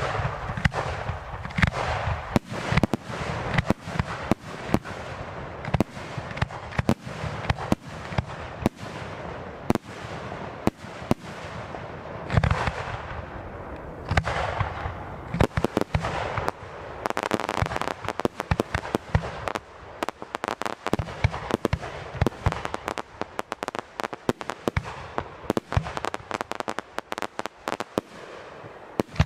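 Fireworks display: a dense, fast run of bangs and crackling over a steady hiss, beginning suddenly.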